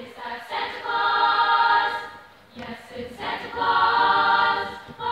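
High school choir singing held chords in two phrases, with a short break for breath about two seconds in.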